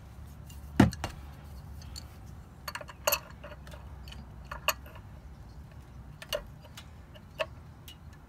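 Scattered sharp clicks and small knocks of hands and a paper towel working around a brass Fumoto oil drain valve on the oil pan while wiping off excess oil, the loudest click about a second in.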